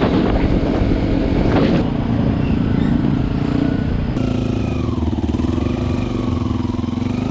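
Yamaha WR155R dual-sport motorcycle's engine running under way, recorded from the rider's position, with abrupt changes in tone where clips are spliced together. On the dirt trail the engine pitch rises and falls as the throttle is worked.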